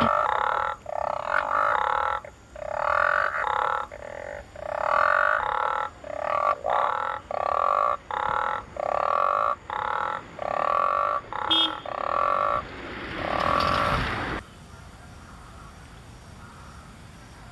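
Frogs croaking in a rapid series of loud, rasping calls, about one a second. The calls stop about 14 seconds in and give way to a steady low background hiss.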